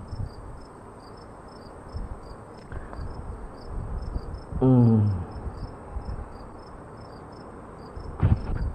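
Crickets chirping in a steady high-pitched pulse, about three chirps a second. A man's voice makes one short sound about halfway through, and there is a brief burst of noise near the end.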